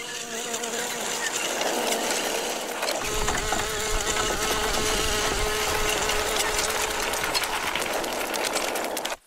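A fly's buzz, a steady hum with overtones, over a rushing, engine-like noise of small vehicles speeding along; it cuts off suddenly near the end.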